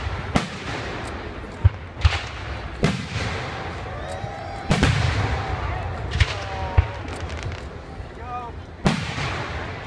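Fireworks display: a series of sharp booms a second or two apart, each followed by a rolling echo, with spectators' voices in between.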